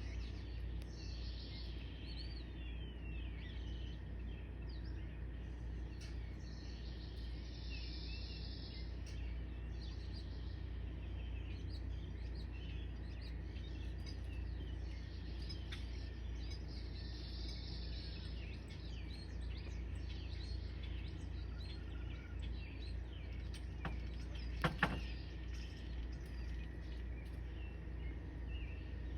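Birds chirping and calling, many short calls overlapping, over a steady low rumble. A brief louder call stands out near the end.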